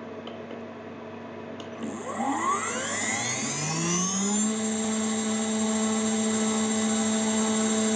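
Hobby CNC mill's spindle, fitted with a 6 mm four-flute endmill, spinning up: a whine that rises in pitch from about two seconds in, reaches speed after about four and a half seconds, and then runs steady toward its set 15,000 rpm.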